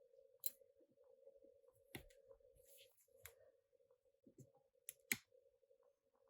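Faint scattered clicks and taps from handling small smartphone parts and tools, about five or six in all, the loudest a little after five seconds in, over a faint steady hum.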